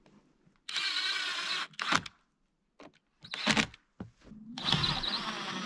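Cordless drill with a long extension bit running into wooden cabin siding in several short runs: about a second, a brief blip, another short run, then a longer run near the end.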